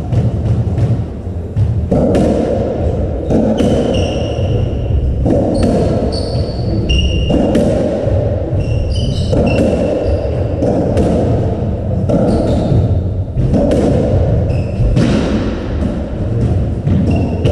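Racketball rally on a squash court: the ball smacks off racket strings and walls every second or so, in a hall that echoes. Short high shoe squeaks come from the wooden floor as the players move.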